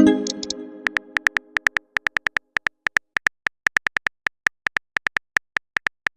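Texting-story typing sound effect: short, identical high beeps, about four to six a second in uneven runs, as message text is typed out. It opens with a ringing chime that fades over about two seconds.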